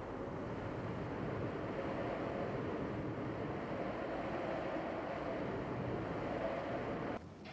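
Steady rushing wind noise with a faint wavering howl in it, cutting off suddenly near the end.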